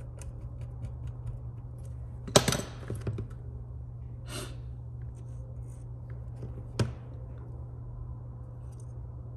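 Small tools and phone parts handled on a workbench: light scattered clicks, a sharp knock with a short clatter about two and a half seconds in, and another sharp click later, over a steady low hum.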